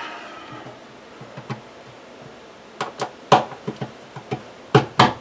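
Sharp knocks and clicks of an LED under-cabinet strip light fixture being handled and pressed up against the underside of a wooden cabinet, the loudest a little past three seconds in and two more close together near the end.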